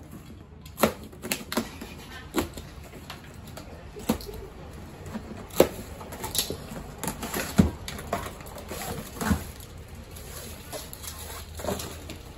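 Plastic packing straps being cut and pulled off a cardboard box: a series of irregular sharp snaps and clicks, about a dozen, with scraping and rustling of hands on the cardboard between them.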